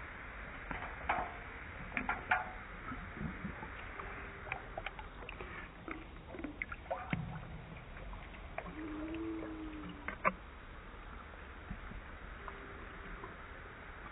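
A dog splashing its muzzle in a stainless steel bowl of water to fish out treats: scattered splashes and drips, over a steady low background noise.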